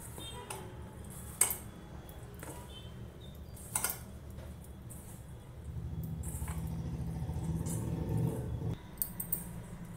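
Chicken strips being tossed by hand in flour in a stainless steel bowl, with a few sharp clinks as the hand and bangles knock the bowl. A steady low hum comes in about six seconds in and stops near the end.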